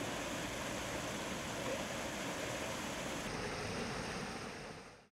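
Small backyard rock waterfall splashing steadily into a pool, fading out just before the end.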